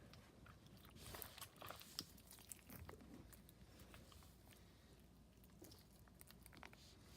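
Faint wet clicks and squishes of slime being kneaded and stretched by hand, with a cluster of small crackles one to three seconds in.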